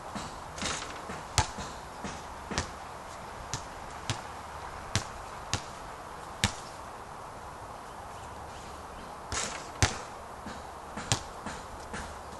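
A basketball hitting the hoop and bouncing on the court: a sharp slap about a second and a half in, then a string of single bounces at uneven intervals, and another loud hit and more bounces near the end.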